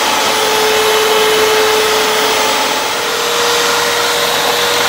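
Ikon Multi-Pro electric stand mixer running steadily, its beaters whipping cream in a stainless steel bowl: a loud, even motor whine with a whirring hiss.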